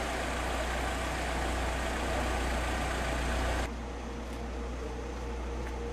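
Low, steady rumble of a vehicle engine idling under outdoor noise. It cuts off abruptly about three and a half seconds in, leaving a quieter hiss with a faint steady hum.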